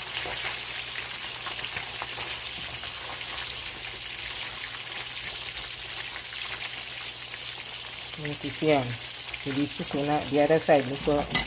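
Turkey tails frying in hot oil, a steady sizzle, with a silicone spatula turning the pieces near the start. A person's voice comes in over the frying in the last few seconds.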